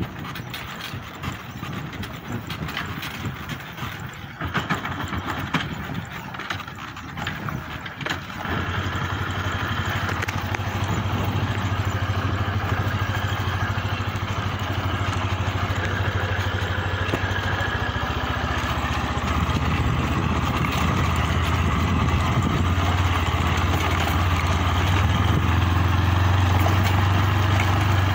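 Truck engine running steadily at low speed while the truck creeps down a steep dirt slope; for the first several seconds the engine is faint under irregular rattling and knocks, then a steady low drone comes in about eight seconds in and grows a little louder near the end.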